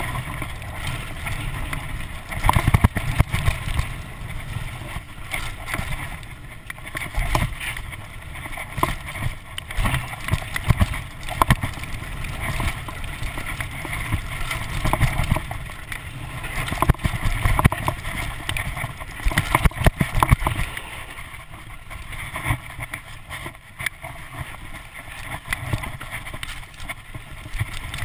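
Mountain bike riding fast down a rough dirt singletrack: wind buffeting the camera microphone and tyres rumbling over the dirt, with frequent knocks and rattles from the bike as it hits bumps.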